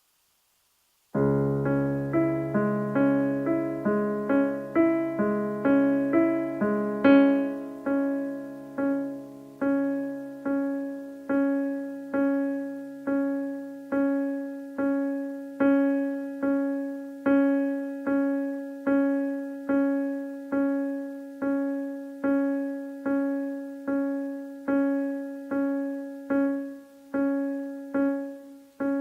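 Casio Privia PX-330 digital piano playing, starting about a second in: first a run of notes at changing pitches over a held low note, then a single note struck over and over, about one and a half times a second. The playing shows off a fault in the tuning of the instrument's notes.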